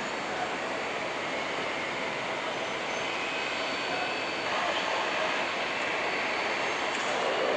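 Jet engines of an Airbus A300F4-622R freighter (Pratt & Whitney PW4158 turbofans) running on the runway at the start of its takeoff: a steady rushing noise that grows a little louder about halfway through.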